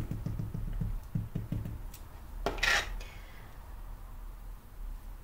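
A small ink pad dabbed quickly again and again onto a wood-mounted rubber stamp, making a run of soft taps. About two and a half seconds in comes a brief scrape as the stamp is pressed onto the paper.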